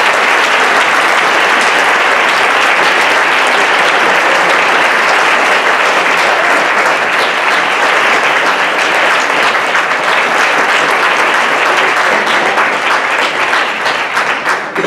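Conference audience applauding steadily, a dense patter of many hands clapping that fades near the end.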